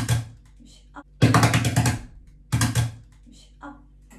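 Japanese taiko drums beaten in rapid rolls, three bursts: a short one at the start, a longer one a little past a second in, and a short one just before the three-second mark.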